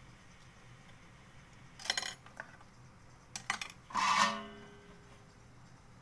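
Small metal tools clinking and being set down on a workbench: a short clatter about two seconds in, a couple of clicks, then a louder clink about four seconds in that rings on briefly.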